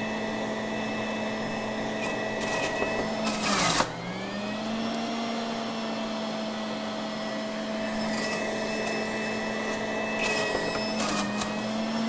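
Breville centrifugal juicer running with a steady motor whine. About four seconds in, romaine lettuce is pushed down the feed chute onto the spinning cutter: a loud shredding rush as the motor's pitch sags under the load and then climbs back. It sags slightly again near the end.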